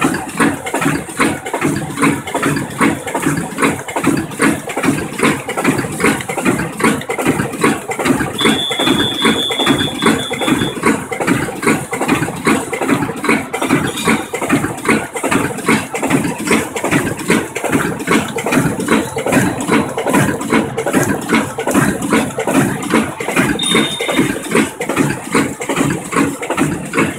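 Automatic soft loop and patch handle bag making machine running, its strokes repeating steadily at about one and a half a second. A thin high tone sounds for about two seconds around eight seconds in and briefly again near the end.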